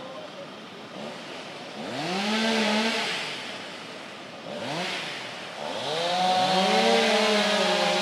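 Two-stroke gasoline chainsaw idling, then revved up twice, each time rising and falling back. About six seconds in it climbs to high revs and holds there, the pitch wavering slightly.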